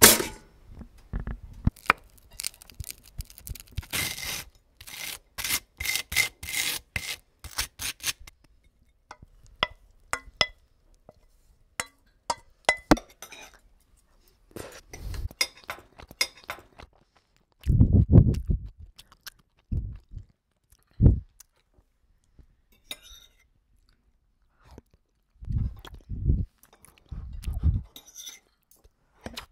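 A toaster pops up with one sharp click. Then come close, crisp crunches and clicks, like toast being bitten and chewed right at the microphone. In the second half there are several dull low thumps and a few light clinks.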